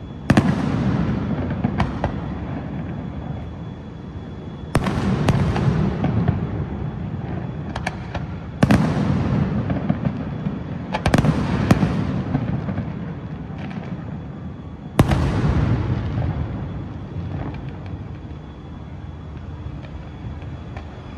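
Aerial firework shells bursting: about five heavy booms, each trailing off into a long rumble, with a few lighter cracks between them. The last boom comes about three-quarters of the way through and fades out.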